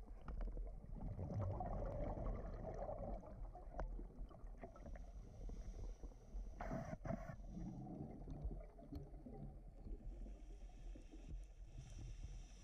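Underwater ambience through a dive camera's housing: a steady low rumble with the gurgle of a scuba diver's regulator bubbles, and a brief hiss about seven seconds in.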